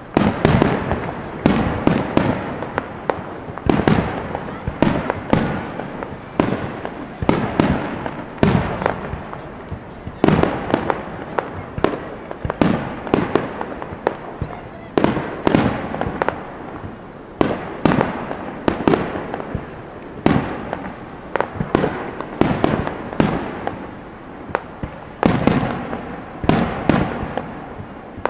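Aerial firework shells bursting in a rapid, uneven series of loud bangs, about one or two a second, each trailing off in echo.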